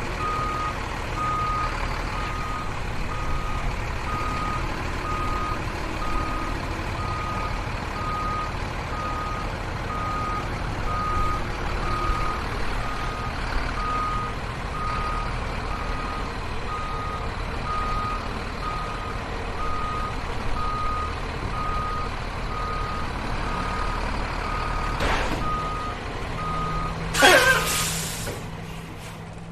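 Diesel delivery truck reversing: the engine rumbles while the reverse alarm sounds a steady train of short beeps at one pitch. Near the end the beeping stops and the air brakes let out a brief, loud hiss, the loudest sound here.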